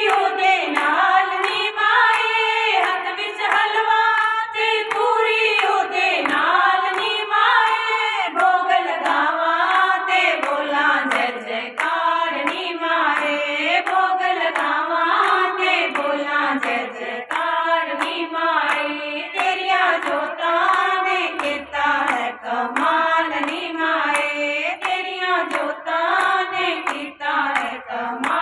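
A group of women singing a devotional bhajan together, with a steady rhythm of hand claps keeping time.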